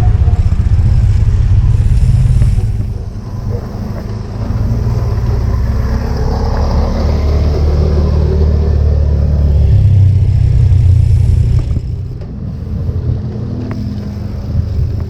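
Loud low rumble of wind buffeting the microphone and road noise from a moving bicycle, with motor traffic passing alongside.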